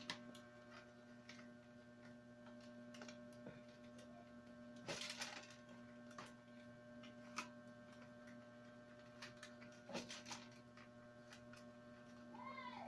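Near silence: a steady electrical hum with scattered faint clicks and crackles of natural wicker strands being bent and woven by hand. The loudest come about five and ten seconds in, and a short squeak comes near the end.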